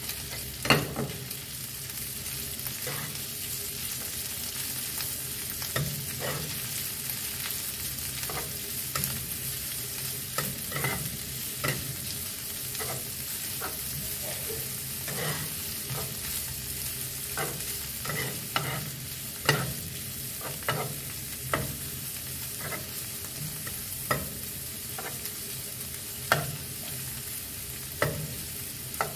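Kimchi with prawns and pork sizzling in oil in a nonstick frying pan over a gas flame, a steady hiss, while a spatula stirs it, scraping and knocking irregularly against the pan; the sharpest knock comes about a second in.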